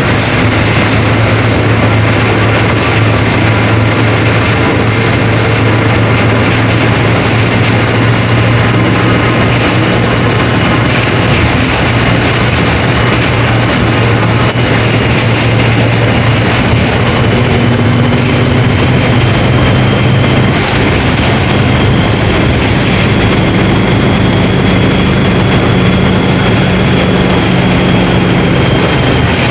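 Mercedes-Benz OF 1721 BlueTec 5 bus engine running steadily with the bus rolling, a loud low drone over rumbling road and body noise. A faint high whine drifts slowly up in pitch and back down through the middle of the run.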